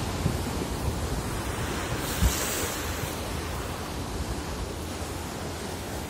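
Rough sea water churning and rushing, with wind buffeting the microphone in gusts. A short thump comes about two seconds in, with a brief swell of hiss.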